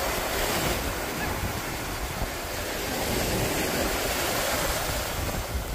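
Ocean surf washing up on a sandy beach, a steady rushing noise, with wind rumbling on the microphone.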